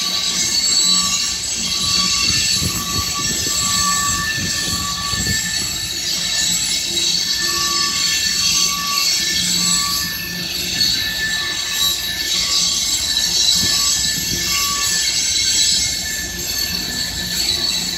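A train of covered hopper cars rolling past, steel wheels squealing on the curving rail in on-and-off high tones over a steady rumble.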